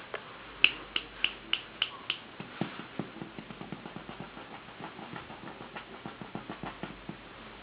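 Six sharp clicks in quick succession, about three a second, then a teething puppy chewing on a cotton t-shirt: a run of small irregular gnawing ticks and teeth clicks.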